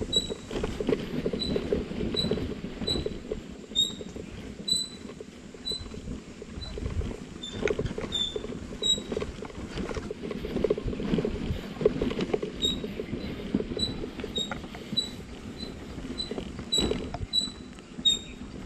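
Motorcycle ridden slowly over a broken, potholed road: low engine and road rumble with jolts and a few sharp knocks. A short high squeak repeats about twice a second throughout.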